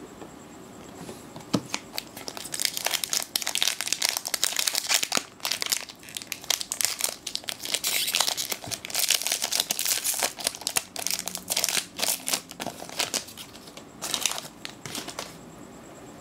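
Foil wrapper of a Magic: The Gathering booster pack being torn open and crumpled: dense, crackly crinkling that starts about a second and a half in, with a last flurry near the end before it stops.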